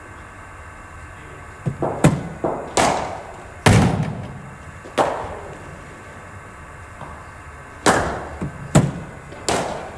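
A cricket bat striking a machine-bowled ball in an indoor net, among a string of about ten sharp knocks that echo in the hall. The loudest comes about four seconds in.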